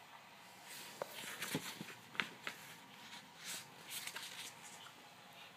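Soft rustling and scattered light taps of a picture book being picked up and opened, most of it in the middle of the stretch.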